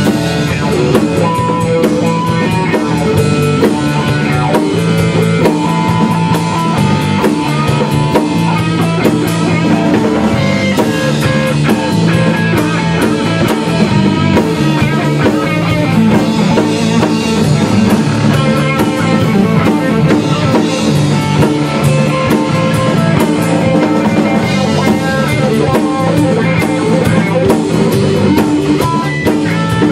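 Rock band playing live in a small rehearsal room: electric guitar over a drum kit.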